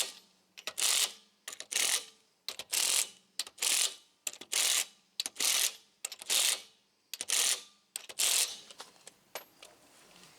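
Hand ratchet worked in quick repeated strokes, about one a second, each back-swing clicking; plausibly tightening the wheel's lug nuts. The strokes stop near the end.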